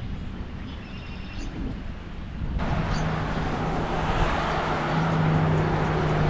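A steady rushing noise with a low hum underneath starts abruptly about two and a half seconds in, after a quieter stretch.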